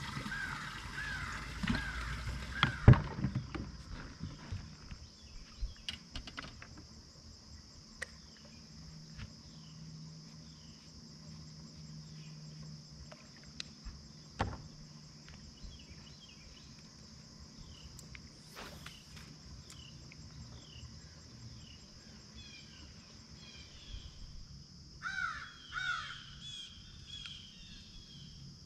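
Birds calling repeatedly over a steady high hum of insects, with louder calls near the end. In the first few seconds, knocks and one loud thump from handling on the boat deck.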